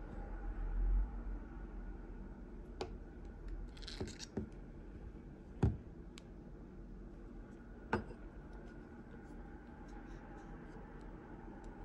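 Handling sounds of a Shimano Twin Power 4000 FC spinning reel being taken apart by hand. The spool slides off the main shaft and the drag knob is set down on a wooden table. There are a few scattered sharp clicks and knocks, the loudest about halfway through, and a brief scrape around four seconds in.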